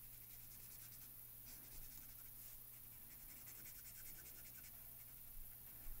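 Faint scratchy strokes of an alcohol marker nib rubbing back and forth across cardstock, in quick repeated strokes that stop about five seconds in.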